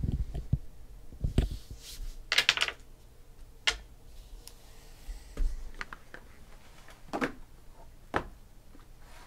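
Sealed cardboard trading-card boxes being handled and lifted off a stack: a string of separate light knocks and taps, with a brief rustling scrape about two and a half seconds in.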